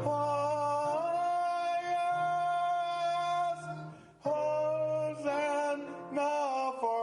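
A man singing long held notes of a sacred song over a sustained instrumental accompaniment, with a short break about four seconds in.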